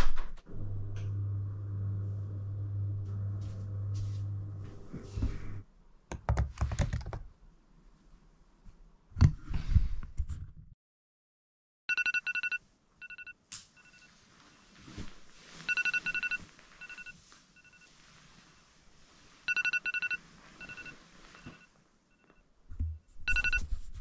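A steady low hum with a few knocks, then after a short silence a wake-up alarm beeping in repeated groups of short, high beeps.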